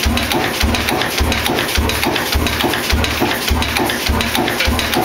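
40hp Blackstone spring-injection oil engine running steadily, a low beat repeating evenly a little under twice a second under a fast clatter of valve gear and injection.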